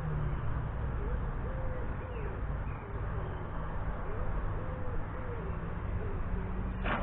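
A pigeon cooing, soft hooting notes repeated in short phrases, over a steady low hum.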